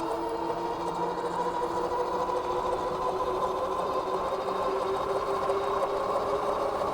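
Dual electric hub motors of a Philodo H8 all-wheel-drive e-bike whining steadily under way, a motor hum in several tones over a rush of riding noise.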